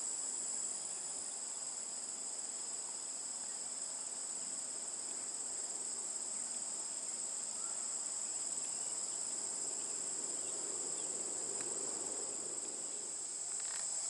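Steady high-pitched chorus of crickets trilling without a break, with a faint low hum of honeybees working at the hive entrance underneath.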